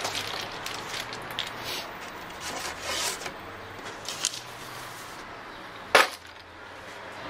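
Sheets of paper and a cotton cloth being handled and rustled on a wooden tabletop, with one sharp knock on the wood about six seconds in.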